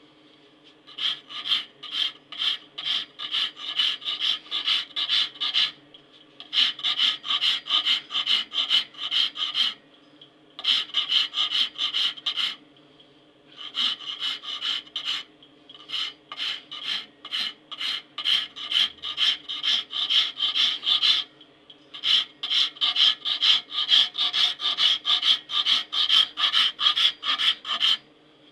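Hand file rasping back and forth across a knife clamped in a bench vise, metal scraping on metal at about two strokes a second. The strokes come in five runs with short pauses between them.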